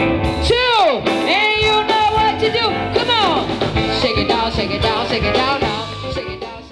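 Live band music with electric guitar and a steady beat, with repeated notes swooping up and then down in pitch; the music fades out near the end.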